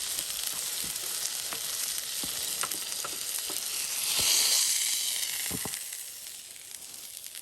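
Burger patty sizzling on a hot camp grill, with a few light clicks. The sizzle swells about four seconds in, then dies down near the end.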